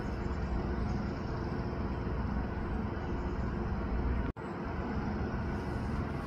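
Steady outdoor background noise with a low rumble and no distinct events. It cuts out for an instant about four seconds in, at a splice between clips.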